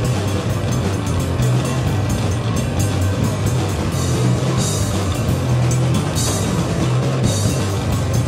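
Live rock band playing loudly: drum kit, electric bass and guitar, with a heavy bass line under the whole passage and cymbal crashes about four and six seconds in.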